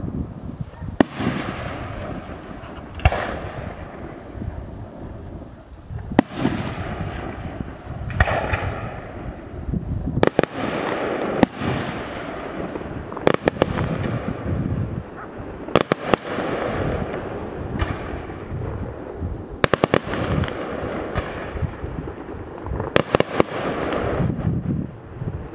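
Fireworks display: aerial shells firing and bursting with sharp bangs every few seconds, several of them in quick clusters of two or three. Continuous crackling noise fills the gaps between the bangs.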